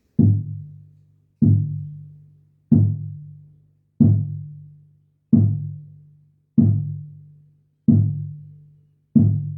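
Closed, double-headed shamanic hand drum of the 'Cherokee nativo' type, without beads inside, struck in a slow steady beat: eight strokes, about one every 1.3 seconds. Each stroke is a low, muffled note that rings and dies away before the next.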